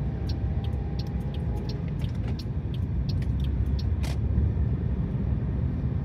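Car cabin noise while driving: a steady low rumble from the engine and tyres on the road. Scattered light clicks run through it, with one stronger click about four seconds in.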